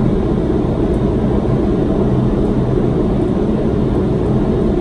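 Steady low rumble of airflow and engine noise inside a Boeing 767-300's cockpit on final approach, with a faint low hum under it.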